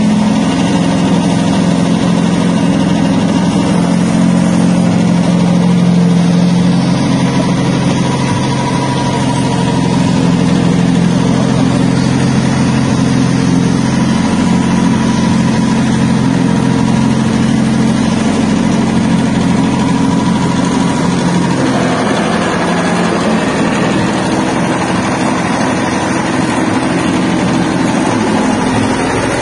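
Stainless-steel soybean dehulling machine running under a steady motor hum. About three-quarters of the way through, the low hum fades and the sound turns thinner.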